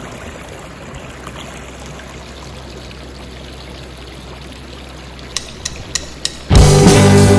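Shallow water trickling and running over rocks, with four sharp clicks near the end. Loud rock music cuts in suddenly shortly before the end.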